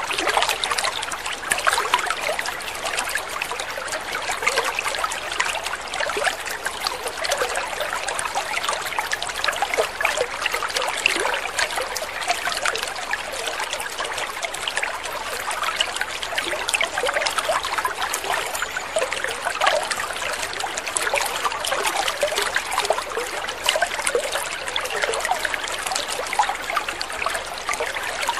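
Water trickling and splashing steadily, an unbroken stream of many small splashes.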